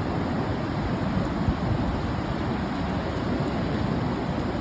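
Steady rushing of surf and wind, with wind buffeting the microphone.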